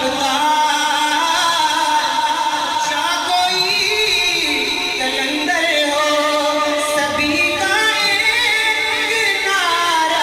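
Islamic background vocal music: a voice singing long, held, ornamented phrases, with no beat.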